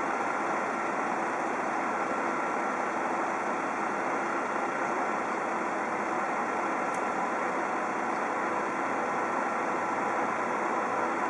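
MAN sewer-cleaning truck running steadily while it stands, a constant mechanical drone with a faint steady whine.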